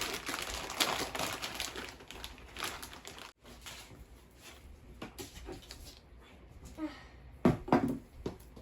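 Packaging being pulled off a new electric scooter, crinkling and rustling, then scattered small clicks and a few sharp knocks near the end.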